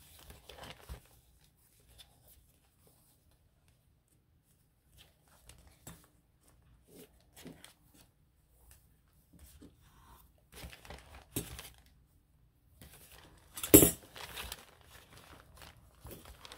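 Hand-sewing a journal's paper signatures with needle and thread: intermittent rustles and scrapes of paper and thread being pulled through, with one louder, short rasp near the end.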